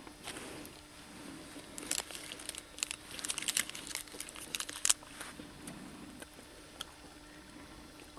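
Dry leaves and loose stones crunching and crackling underfoot, in a flurry of sharp crackles through the middle few seconds that then dies down.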